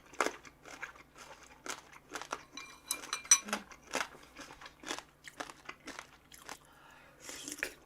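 Close-miked eating: chewing with irregular crisp crunches and bites on crunchy food, the loudest crunch a little past the middle.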